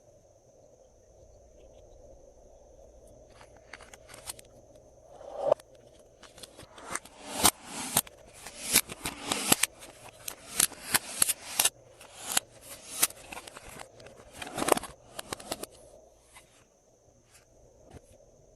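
Glossy slime being squeezed and folded by hand: a quiet start, then about ten seconds of sharp sticky clicks and crackling pops as trapped air bursts, thinning out before the end.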